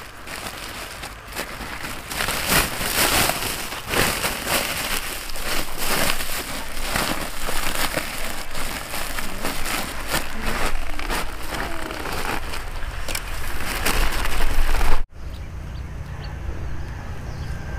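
Woven plastic sack rustling and crinkling in quick, dense crackles as it is stuffed with broccoli and twisted shut. About 15 seconds in the crackling cuts off abruptly, and a quieter, steady low rumble follows.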